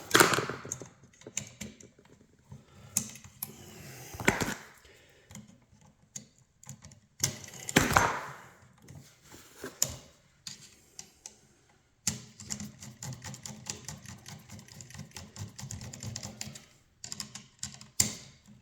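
Irregular clicking and tapping of hand tools and stiff electrical wire being worked onto an outlet's screw terminals, with three louder knocks or scrapes early on and a denser stretch of rustling and clicking in the latter part.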